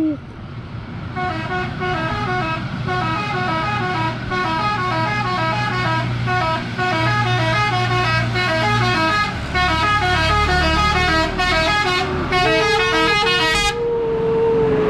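Multi-tone musical "telolet" bus horn playing a fast, repeating melody of stepped notes for about twelve seconds before cutting off suddenly. Near the end it is joined by one steady held horn tone, over the bus's diesel engine running.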